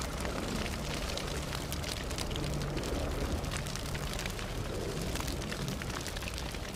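A steady crackling hiss, dense with small sharp pops, over a low hum.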